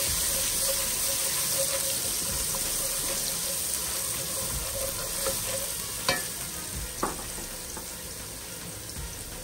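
Garlic, cumin, fenugreek and mustard seeds sizzling in hot oil in a pan as a tempering for kadhi, a steady hiss that eases slightly. Two short sharp clicks come about six seconds in and a second later.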